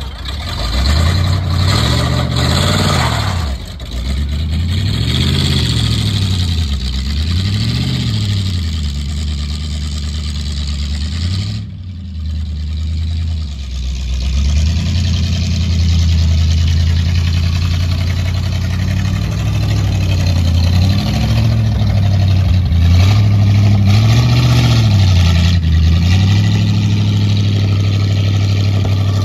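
1950 Ford F1's flathead V8 idling steadily, blipped several times so the revs rise and fall back: a cluster of short revs in the first eight seconds and another near the end.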